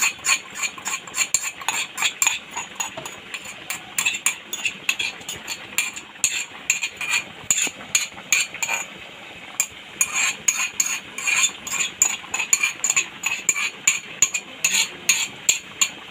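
Metal spoon tapping and scraping against an aluminium cup and the kadai, several sharp clinks a second with a short break about nine seconds in, as the garlic, chilli and Sichuan-leaf paste is scraped out into the pot.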